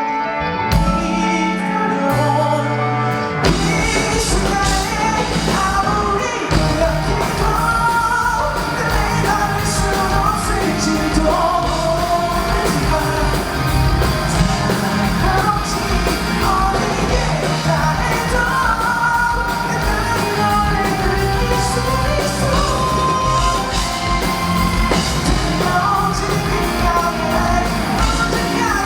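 Pop-rock band playing live with a sung lead vocal, in a large hall. After a sparser opening of about three seconds, the full band with drums comes in.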